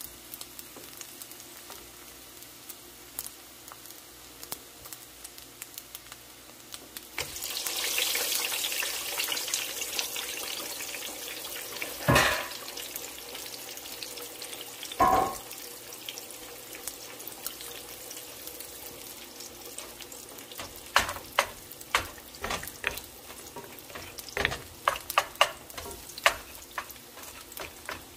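Eggs frying beside fried rice in a pan: a steady sizzle with crackles, swelling to a louder hiss for several seconds about a quarter of the way in. Two knocks follow, and near the end a wooden spatula scrapes and taps against the pan in quick strokes as the eggs are broken up and stirred.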